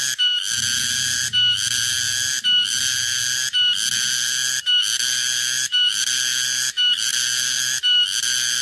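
A strange, shrill buzzing call heard in a garden. Each phrase starts with a short clear whistle-like note and then buzzes steadily for about a second, with a brief break before the next, repeating evenly about once a second.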